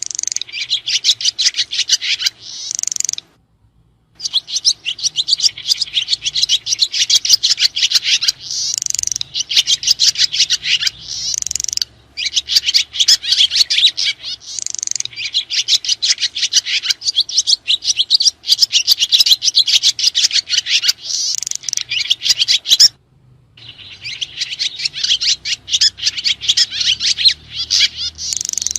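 Swiftlets (sriti) twittering: a dense, rapid run of high chirps and trills, broken twice by brief silences.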